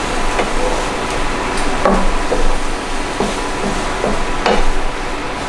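Potatoes and garlic frying in oil in a pan, a steady sizzle, with several knocks and scrapes of a utensil against the pan as they are stirred.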